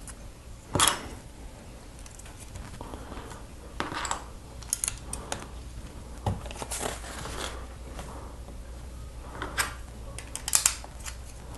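Lego pieces being handled and pressed together: scattered small plastic clicks and brief rustles, the sharpest about a second in and again near the end.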